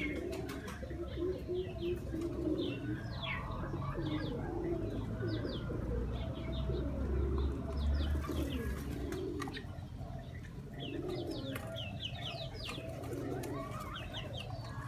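Pigeons cooing over and over, with many short high chirps from other birds and a few sharp clicks mixed in.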